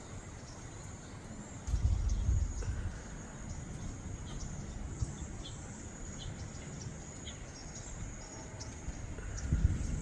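Small birds chirping in short, high notes over a faint outdoor background, with a burst of low rumble about two seconds in and another near the end.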